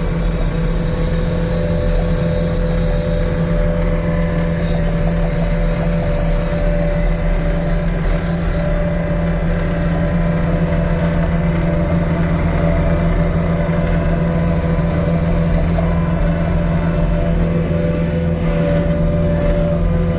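2015 New Holland L228 skid steer's diesel engine running at a steady speed.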